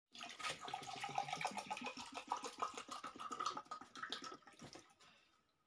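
Water poured from a plastic bottle into a stainless steel tumbler, a fast uneven gurgle that dies away about five seconds in.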